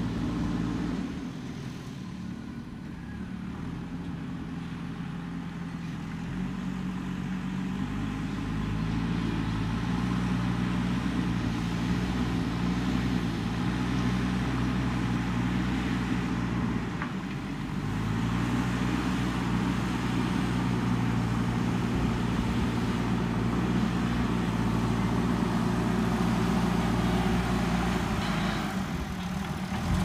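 JCB 3DX backhoe loader's diesel engine running as the machine levels soil with its front bucket. The steady engine note grows louder as the machine comes closer, and the engine speed dips briefly a little past halfway.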